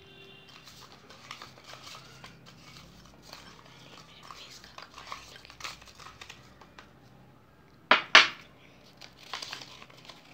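Folded paper chits shaken and stirred in a small glass bowl, rattling and clinking against the glass, with one loud knock about eight seconds in. Near the end a paper chit is unfolded with a crinkle.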